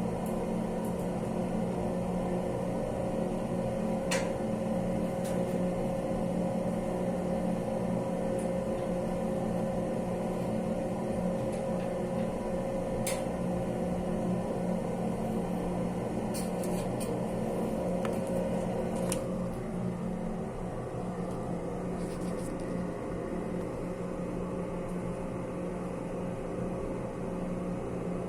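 A steady mechanical hum with a few faint clicks; one tone in the hum drops out about two-thirds of the way through and it gets a little quieter.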